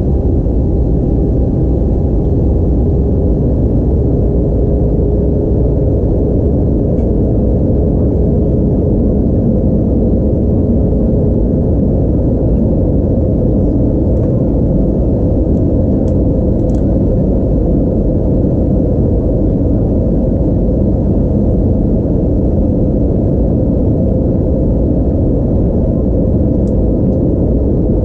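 Steady cabin roar inside an Airbus A320-232 during descent: rushing airflow and its IAE V2500 engines, with a faint steady hum that fades a few seconds in.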